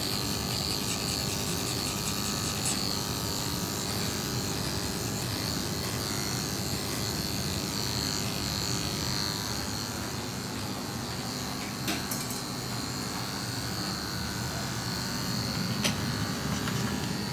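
Electric dog-grooming clippers running with a steady high-pitched hum, the blade shearing through a dog's long coat; two brief clicks in the latter half.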